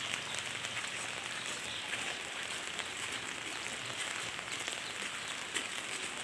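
Heavy rain falling steadily, a dense hiss of drops pattering on surfaces.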